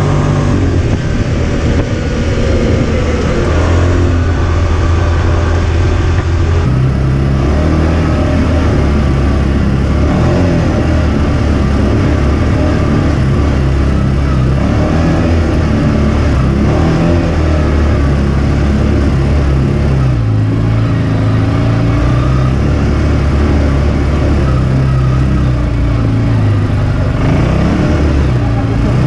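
CFMOTO side-by-side engine and drivetrain running under throttle, heard from inside the open cab while driving a rough trail, the pitch rising and falling with speed. The sound changes abruptly about seven seconds in.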